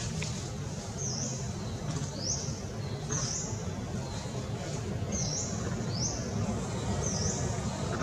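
A bird calling repeatedly: short high-pitched calls, each rising in pitch, about once a second, over a steady low background rumble.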